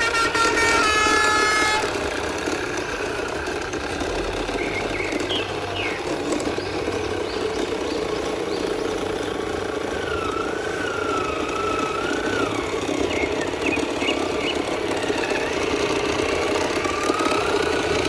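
A horn tooting in a short stepped run of notes for the first two seconds, then a steady engine-like hum with a faint wavering whine rising and falling around the middle.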